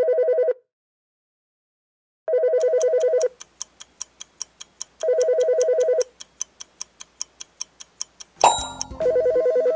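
Electronic telephone ringer trilling in bursts about a second long, four times. Between the rings a countdown clock ticks steadily, and a short chime sounds near the end as it runs out.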